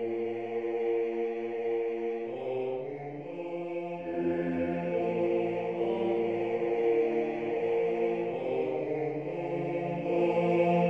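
Choir singing slow, sustained chords in Latin, one voice part moving over long held notes below, the harmony shifting every few seconds.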